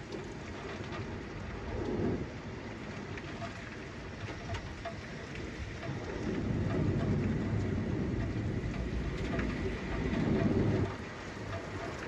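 Rain falling steadily in a thunderstorm, with many small ticks of drops striking. Low rumbles of thunder swell about two seconds in, then longer through the second half.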